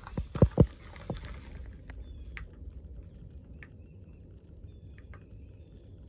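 Footsteps on gravel, a few sharp steps in the first second, then a steady low rumble with faint scattered bird chirps.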